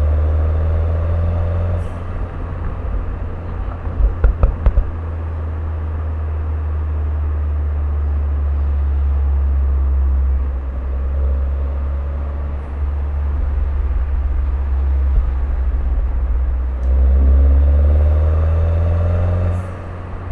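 Turbocharged Mini Cooper engine and sports exhaust while driving. The engine climbs in pitch at the start and again near the end as it accelerates. About four seconds in there is a quick run of sharp exhaust pops.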